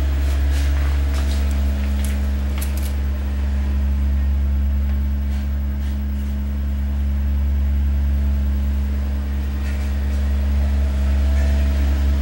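Steady low electrical hum, with a few light handling clicks in the first three seconds as a small capacitor is soldered onto a TV circuit board.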